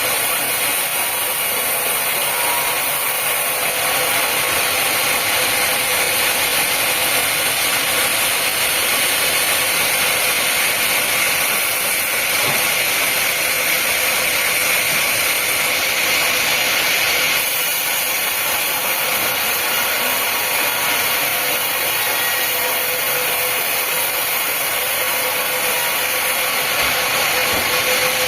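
Sawmill machinery running: a loud, steady mechanical noise with no clear rhythm and little low end.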